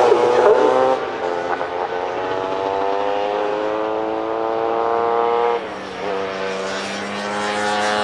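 Vintage racing motorcycle engines running hard on the circuit, their note climbing steadily in pitch, dipping and falling away about five and a half seconds in, then climbing again.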